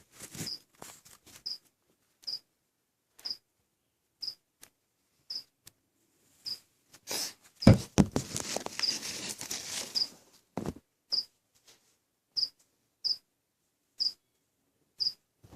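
Rustling and handling of the packaging as a ball python is unpacked, with scattered clicks and a louder stretch of rustling about halfway through. A short high chirp repeats about once a second.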